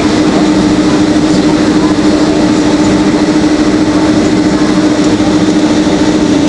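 Boeing 767 cabin noise heard from a window seat behind the wing as the airliner rolls along the runway: the jet engines and airflow make a loud, steady rush with a steady hum running through it.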